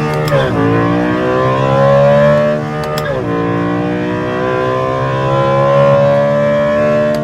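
BMW S65 V8 with a carbon-fiber intake plenum and velocity stacks, accelerating under load, its induction noise climbing steadily in pitch. The pitch drops sharply at upshifts about half a second and three seconds in, then climbs again.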